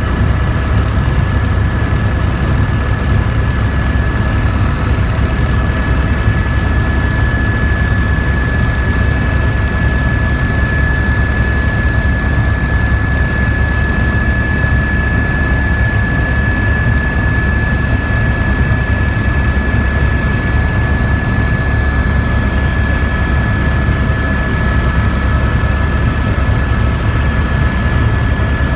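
Helicopter in flight: a steady, loud low rumble with a constant high whine over it, unchanging throughout.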